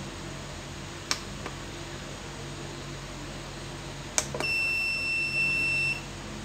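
Push buttons on a homemade box counter clicking twice about a second in and twice again about four seconds in, followed by one steady high-pitched beep of about a second and a half from the counter's buzzer as the reset-counter option is set to YES.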